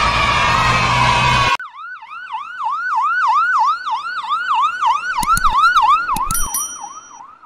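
A heavy vehicle engine running, cut off abruptly about a second and a half in by an ambulance siren: quick repeating up-and-down sweeps, about three a second, fading toward the end. A few sharp clicks and brief high beeps come in near the end.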